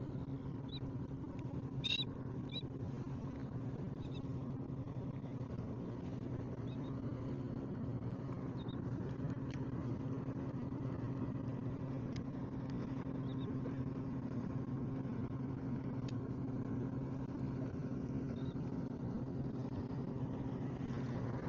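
An engine running steadily with a low, even drone that holds one pitch throughout, with a brief click about two seconds in.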